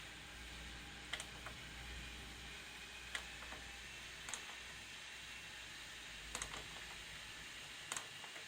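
Candy Optima washing machine running early in its cotton 60° wash: a faint steady hiss over a low hum, with sharp clicks at irregular intervals, about six of them.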